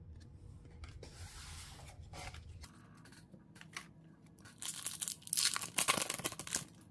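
A trading-card foil pack of 2021-22 Upper Deck Extended Series hockey torn open, a run of loud crinkling tearing in the last two seconds, after a softer rustle of cards about a second in.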